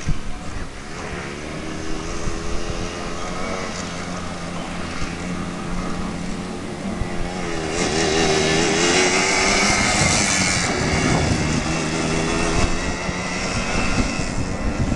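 Yamaha Blaster ATV's two-stroke single-cylinder engine revving as the quad rides around, its pitch rising and falling. It is loudest about eight to ten seconds in, when the quad is closest, and then it accelerates away.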